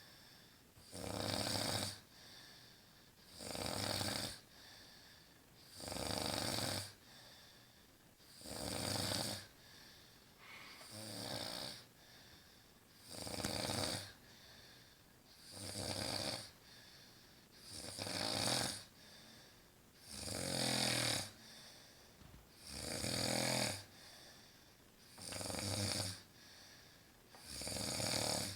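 A woman snoring in her sleep, one snore about every two and a half seconds, each lasting about a second, with quieter breathing between.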